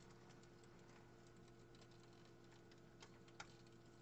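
Faint, irregular clicking of a model railway coach's wheels rolling over the track's rail joints, over a low steady hum.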